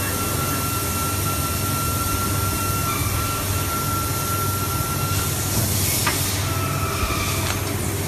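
Hydraulic rubber injection molding press running with a steady low hum and a thin whine. A little past halfway the whine stops, and a hiss and a few sharp clacks follow as the mold opens.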